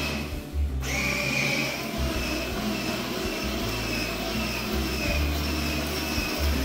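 Steady mechanical drone, like a small motor running, with a low hum that keeps cutting in and out.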